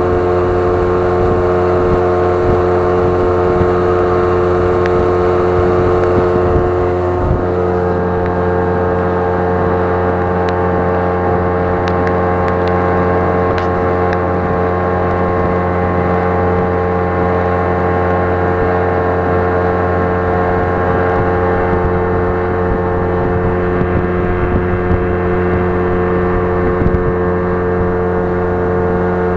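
A motor engine running steadily at an even speed under way, with a small step in pitch about seven seconds in.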